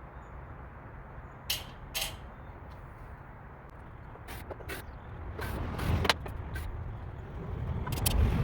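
Wooden crate being pried and knocked apart: two sharp knocks, then a run of cracks and knocks of boards and nails giving way, over a steady low rumble.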